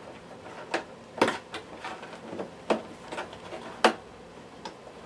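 Plastic trim being bent and pressed into place on a Miele S8 cylinder vacuum cleaner's body: irregular small plastic clicks and taps, about ten in all.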